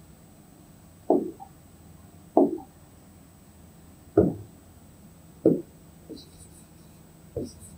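A stylus tapping on a touchscreen interactive whiteboard: six short, dull knocks spaced irregularly, roughly a second apart, as a colour is picked and writing starts.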